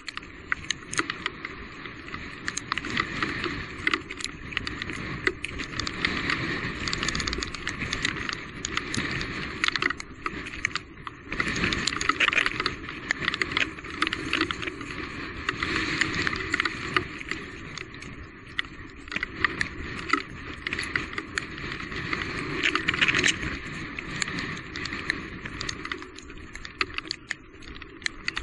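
Electric mountain bike riding over a rough trail: steady tyre and wind noise with the bike's parts rattling, and many small knocks throughout.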